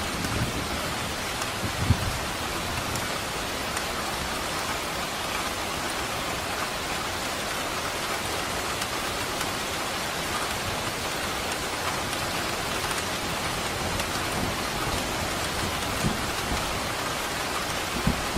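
Steady, dense rainfall. A few brief low thumps stand out, about two seconds in and twice near the end.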